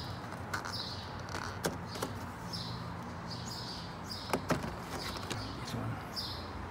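Plastic clips clicking and the trim rattling as the black plastic grille cover over the Porsche 911 (991.2) engine compartment is pried and lifted free: scattered sharp clicks, the loudest pair a little over four seconds in. A bird chirps faintly in the background about once a second with short falling calls.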